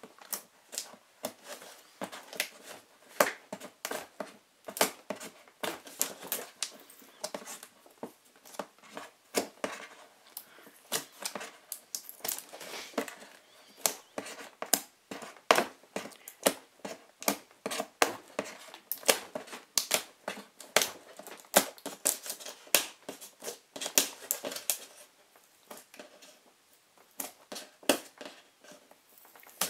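Packing tape being picked at and peeled off a cardboard box, an irregular run of crackles, clicks and tearing as the box is unsealed.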